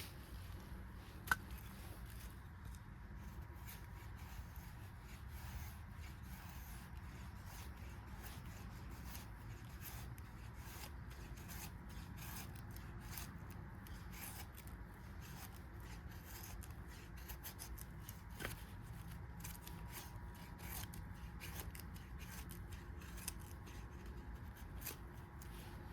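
A handmade 1095 high-carbon steel bushcraft knife shaving curls down a wooden stick to make feather sticks: a long run of quick, irregular scraping strokes, faint. There is one sharp click about a second in.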